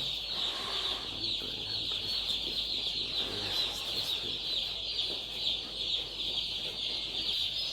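Chicks peeping steadily, a dense high-pitched chorus from many birds at once.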